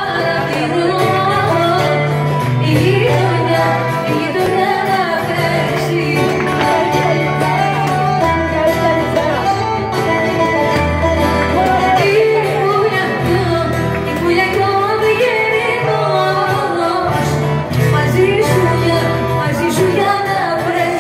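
Music with singing, played loud for dancing, over a bass line that shifts note every second or two.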